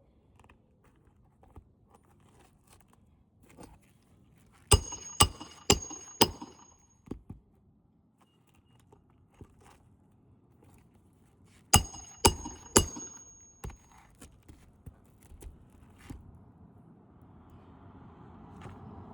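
Two quick series of sharp metallic strikes, each ringing briefly: four about half a second apart, then three more a few seconds later. Faint handling clatter comes between them, and a steady rumbling noise rises near the end.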